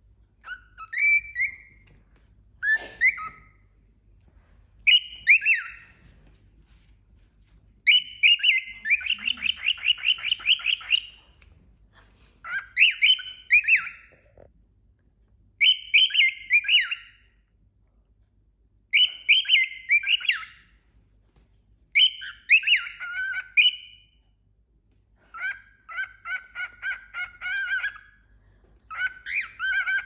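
Cockatiel whistling short phrases over and over, about one every two to three seconds, some of them quick runs of repeated notes.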